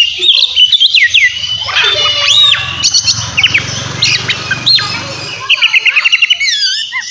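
Oriental magpie-robin (kacer) singing loudly in full, aggressive fighting song: clear sweeping whistles mixed with harsh notes, and a quick run of repeated notes near the end. A low hum lies underneath and stops about two-thirds of the way in.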